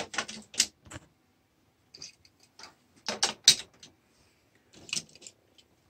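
Die-cast toy cars clicking and clattering against a plastic race track as they are set into the starting-gate lanes, in several short runs of clicks.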